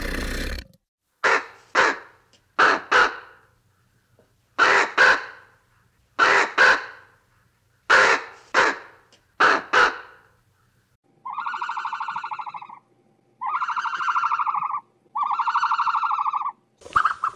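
Raven cawing: harsh caws given in quick pairs, about six pairs in a row. Then three long, steady buzzing calls follow, each about a second and a half.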